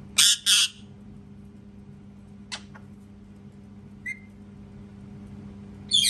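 Rose-ringed (Indian ringneck) parakeet screaming: two loud, harsh shrieks in quick succession at the start, a fainter squawk and a short chirp in the middle, and another loud shriek at the end, over a steady low hum.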